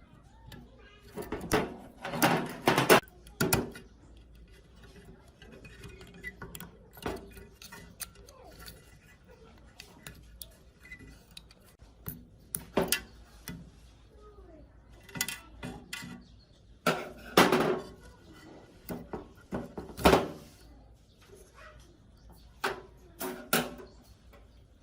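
Metal parts and hand tools clinking and knocking against each other and a work surface, in scattered clattering bursts with quiet stretches between; the loudest bursts come about two to three seconds in and again around seventeen and twenty seconds.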